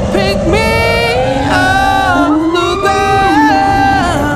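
Background music: an electronic pop song with a sung vocal melody.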